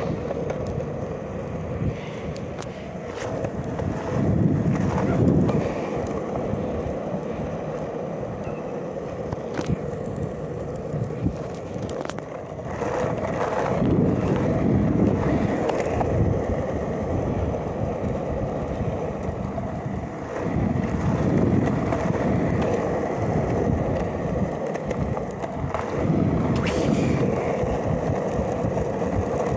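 Longboard wheels rolling fast over a concrete sidewalk: a steady rumble that swells louder in several stretches, with scattered sharp clacks as the wheels cross cracks and joints in the pavement.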